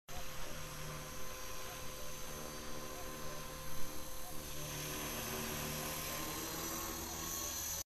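Electric 450-size RC helicopter (HobbyKing HK450) flying overhead: the rotor whirr and a high motor whine run steadily, shifting in pitch as it manoeuvres.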